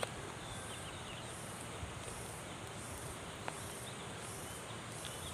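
Insects droning high and pulsing on and off about one and a half times a second, with a bird chirping briefly near the start and two sharp clicks in the middle.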